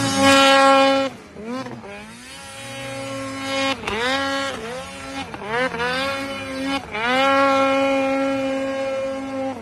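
Snowmobile engine revving hard as the sled ploughs through deep powder. It is at high revs at first and drops off about a second in, then gives a string of short throttle blips. Near the end it is held at high revs for about two and a half seconds.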